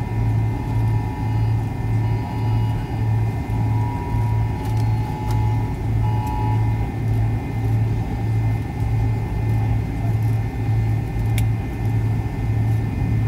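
Cabin sound of a McDonnell Douglas MD-83 taxiing, its tail-mounted Pratt & Whitney JT8D turbofans at idle: a steady low hum that pulses about twice a second, with a faint steady whine above it.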